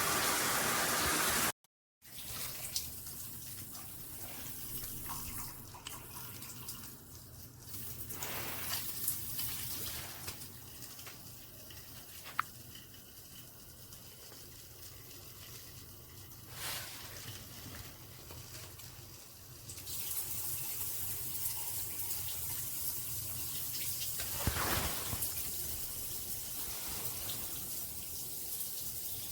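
Water running through a handheld shower head: a loud spray for about the first second and a half, then, after a cut, fainter steady running water with a few scattered clicks and knocks.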